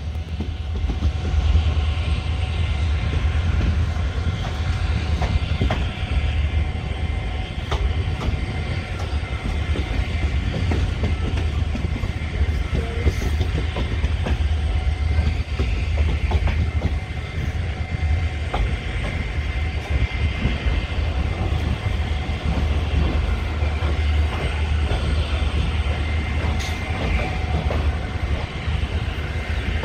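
ICF passenger coach of an Indian Railways express running along the track, heard through an open window: a steady low rumble with wheel and track noise and scattered clicks from the rails.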